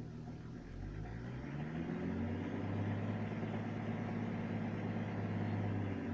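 BMW M51 straight-six turbodiesel engine being revved from idle. It climbs over about a second and a half, holds steady at raised revs, then drops back at the very end. The owner is chasing a knock in this engine that comes in as it warms up and quickens with revs up to 2000 rpm.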